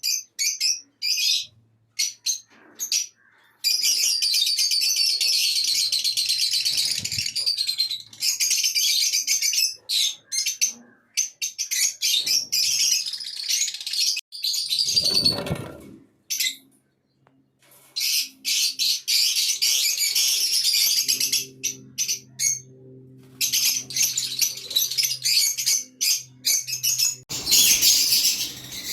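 A group of caged pet parrots chattering and chirping in fast, high-pitched runs, broken by short pauses.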